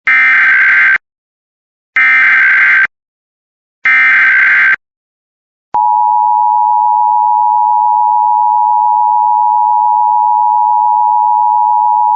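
Emergency Alert System tones: three one-second bursts of SAME header data tones, about two seconds apart. About six seconds in, the steady two-tone EAS attention signal begins.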